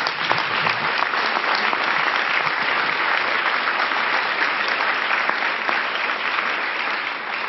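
A large seated audience applauding, dense steady clapping from many hands.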